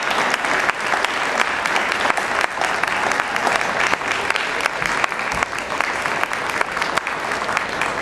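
Arena crowd applauding: a dense, steady patter of many hands clapping.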